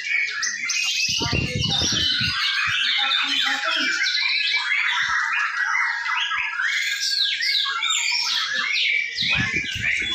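Several caged white-rumped shamas (murai batu) singing at once in competition: a dense, unbroken tangle of loud, fast whistled and chattering phrases. Brief low muffled sounds come about a second in and again near the end.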